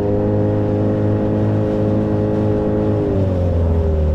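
Outboard motor on an inflatable boat running steadily under way; its revs drop a little about three seconds in.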